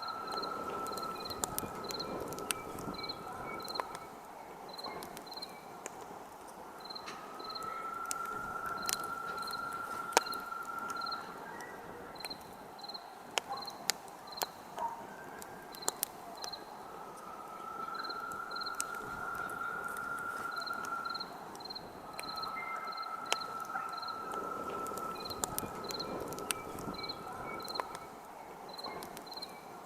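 Campfire crackling, with scattered sharp pops. Under it, night insects chirp: a regular series of high chirps and a lower steady trill that comes and goes in stretches of a few seconds.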